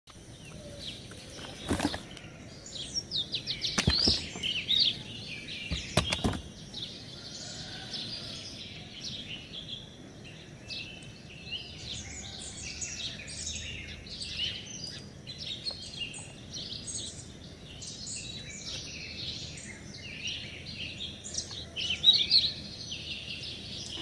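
Small birds chirping continuously in short, rapid calls over a steady background hiss, with three sharp clicks in the first six seconds.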